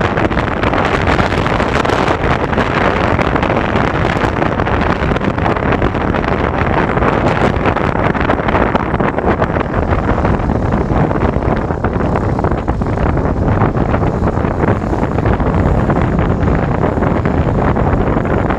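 Wind rushing over the microphone of a moving motorcycle, with the noise of the ride underneath; the rush is steady and gets a little duller about halfway through.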